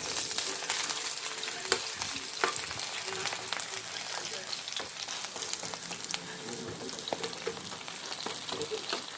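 Battered jeon sizzling in hot oil in a frying pan, a steady hiss with frequent sharp crackles and pops.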